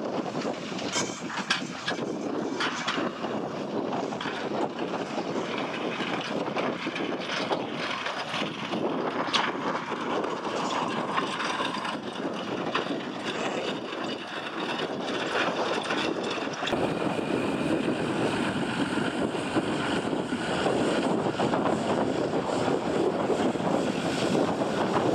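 Steady engine noise from vehicles working at the scene, mixed with wind on the microphone, with a few short knocks in the first half; the sound changes abruptly about two-thirds of the way through.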